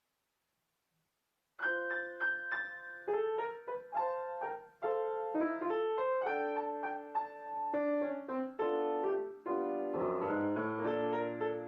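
Silence, then piano music starts about a second and a half in: a melody of distinct notes over chords, with deeper bass notes joining near the end.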